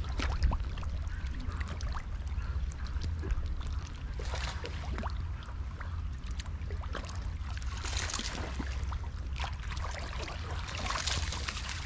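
Small waves lapping and washing against a rocky shoreline, surging every few seconds, over a low steady rumble.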